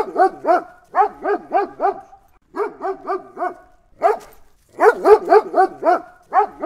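German Shepherd dog barking in quick runs of four or five barks, about four a second, with short pauses between runs.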